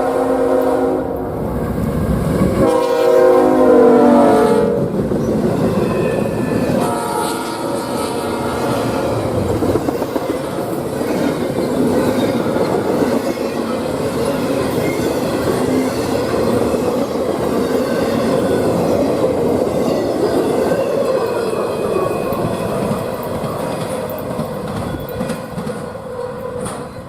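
Freight locomotive's multi-chime air horn sounding three blasts, the middle one the longest, then the train rolling past with a steady rumble and clatter of wheels over rail joints that fades near the end.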